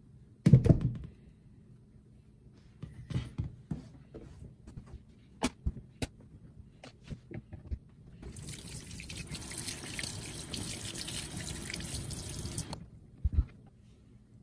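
Tap water running into a stainless-steel sink for about four seconds, rinsing a freshly trimmed Pachypodium caudex. Before it, a loud knock and scattered clicks and scrapes of cutting and handling; another knock near the end.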